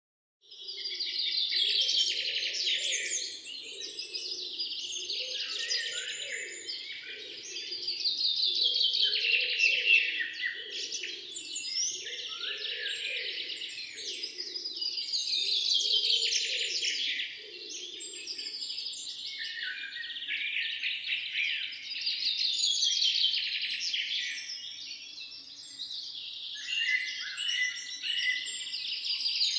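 Songbirds singing and chirping in a dense, continuous chorus, starting about half a second in. A lower, pulsing call sounds underneath through roughly the first half.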